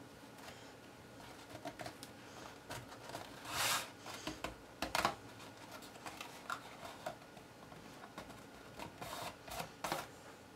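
Paper pieces being handled and pressed together while being glued: faint rustling and light taps, with a louder rustle about three and a half seconds in and a sharp tap about five seconds in.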